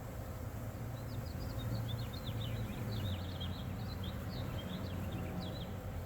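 Honey bees buzzing around an opened hive, a steady low hum, with a small bird twittering rapidly over it from about a second in until near the end.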